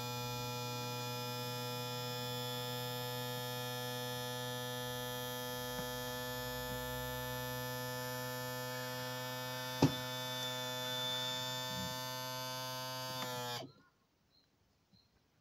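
Electric pump motor of a Showa power trim and tilt unit on a Yamaha 150 outboard, running with a steady hum as it slowly tilts the engine up. It gives one sharp click about ten seconds in, then its pitch sags slightly and it cuts off abruptly near the end. The tilt is very slow despite new seals and O-rings.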